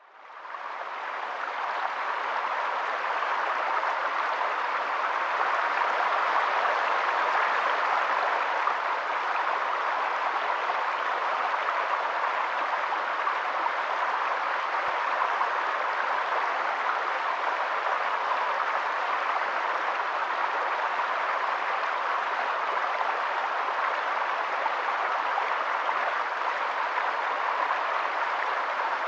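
Venta Rapid, Europe's widest waterfall, rushing with a steady roar of falling water. It fades in over the first couple of seconds and then holds even throughout.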